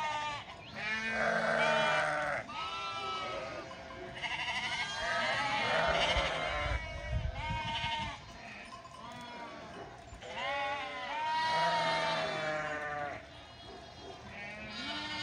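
A ewe and her lamb bleating over and over, one wavering call after another.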